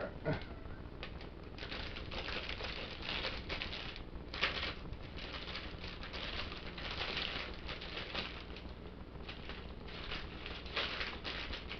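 Thin clear plastic bag crinkling and rustling in irregular bursts as it is pulled and worked open around a plastic toy.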